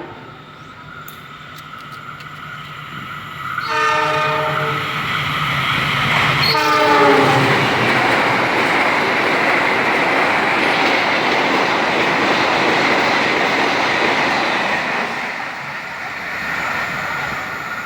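Indonesian train horn sounding a chord about four seconds in, then again a couple of seconds later with its pitch falling as the train passes close by. The noise of the passing train follows, with wheel clatter on the rails, for about eight seconds before fading.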